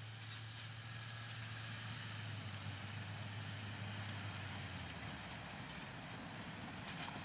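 Pickup truck driving slowly across a grass field towing a loaded round-bale trailer, its engine a steady low hum under outdoor noise, the hum fading out about five seconds in.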